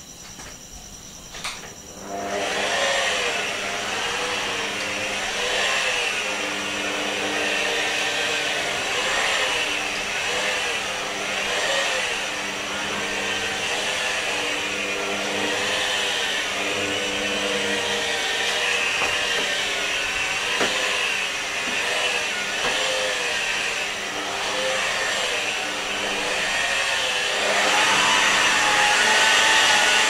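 Rotary polisher with a wool pad buffing cutting compound on a car's painted bonnet: the motor starts about two seconds in and runs steadily, its pitch wavering as the pad is pressed and swept, then rising near the end.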